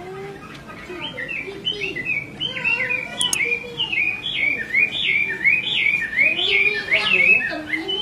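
Chinese hwamei singing a fast run of slurred whistled notes that swoop up and down, about three a second, starting about a second in.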